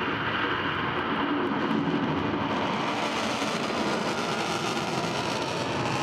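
Ballistic missile's rocket engine at launch: a steady, rough rushing noise as it lifts off and climbs.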